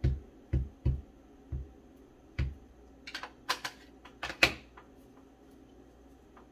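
An upturned ink pad tapped repeatedly onto a clear stamp on an acrylic block: about five dull taps over the first two and a half seconds. These are followed by a few sharper plastic clicks and knocks as the ink pad case is handled, the loudest one a little after the middle.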